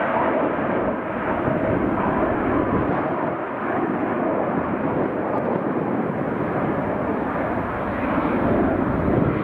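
Boeing 787-9 airliner's GEnx-1B turbofans at takeoff power as it climbs out: a steady, loud jet roar.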